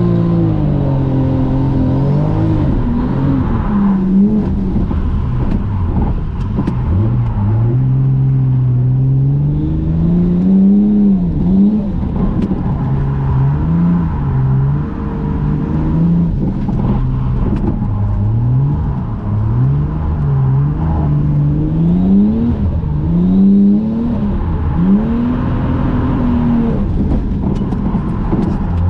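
Toyota JZX100 Mark II's engine revving hard while drifting, heard from inside the cabin: the pitch climbs and drops back over and over as the throttle is worked through the corners.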